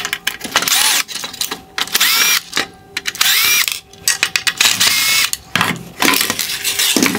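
Cordless drill/driver backing out Phillips head screws from the headlight's plastic reflector bracket: about five short runs, each motor whine rising in pitch and then holding, with clicks and knocks of handling between them.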